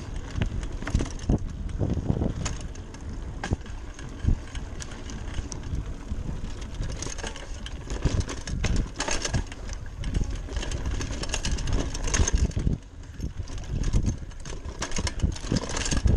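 Giant Talon 3 29er hardtail mountain bike rolling fast over a rocky dirt trail: tyres crunching over dirt and stones, with steady low rumble and frequent clattering knocks and rattles from the bike over bumps.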